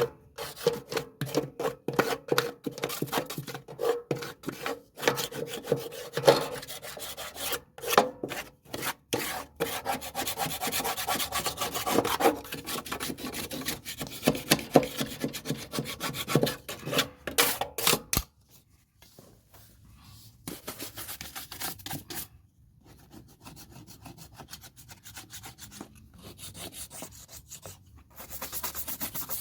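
Stiff deck cleaning brush scrubbing and scraping caked grass off the underside of a Weibang 46 lawnmower deck, in quick repeated strokes. The scrubbing is vigorous for most of the time, then becomes lighter and quieter after about 18 seconds.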